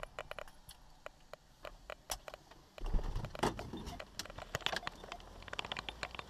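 Car keys jangling, with a run of small clicks and rattles inside the stopped car. In the second half the driver's door is opened and a low rumble comes in.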